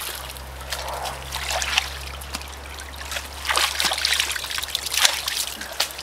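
Muddy water trickling and sloshing in a newly dug pond channel, with a few splashes as a man wades through it in rubber boots.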